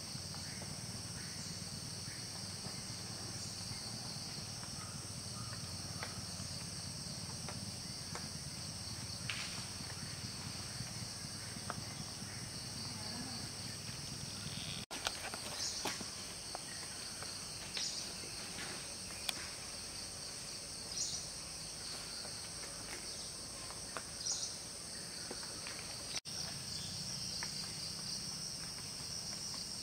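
Steady high-pitched chorus of insects, with scattered short chirps and clicks over it and a low hum underneath for much of the time.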